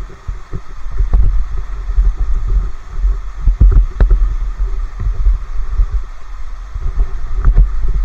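Irregular low rumbling and thumping noise on a body-worn action camera's microphone, from handling or wind. A few sharp clicks come through about one, four and seven and a half seconds in.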